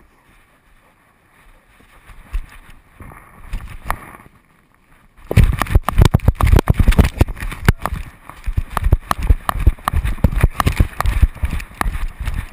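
Dog-mounted GoPro knocking and jostling as the dog breaks into a run about five seconds in: rapid, irregular thumps from its strides and the shaking mount. Before that there are only a few light knocks.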